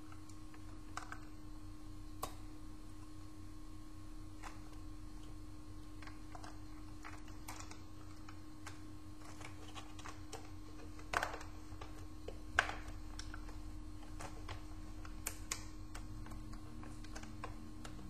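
Scattered clicks and light knocks of an Acer laptop's plastic casing being handled and pressed together as the top case is fitted onto the base. Two louder snaps come a little past the middle, over a faint steady hum.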